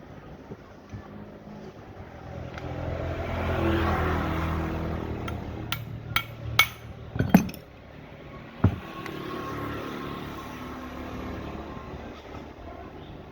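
A motor vehicle's engine swells and fades as it passes, with a weaker second pass later. In between come a quick run of about six sharp metallic clinks and a single knock.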